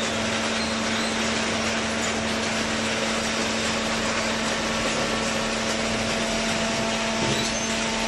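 Cardboard baler's electric motor and hydraulic pump running steadily: a constant hum over broad, even machine noise.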